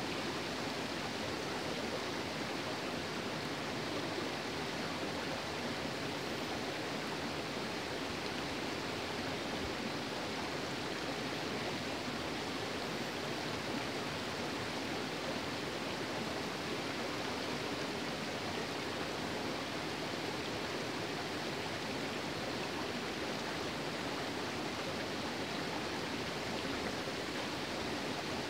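Shallow moorland stream running over rocks and stones: a steady rush of water.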